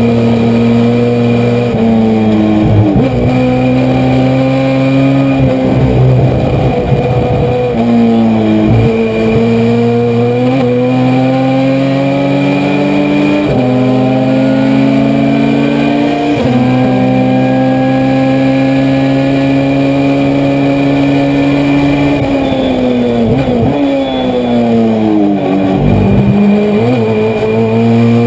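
Honda CRX race car's four-cylinder engine at full throttle, heard from inside the cockpit. Its pitch climbs through the gears and drops sharply at each upshift. Near the end it falls away under braking with short blips on the downshifts, then pulls again.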